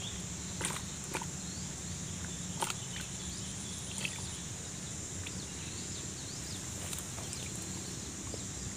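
A steady high-pitched drone of insects, with a few faint bird chirps over it. A handful of short clicks and rustles come from handling the bait fish at a bucket and the line of a bamboo fishing rod.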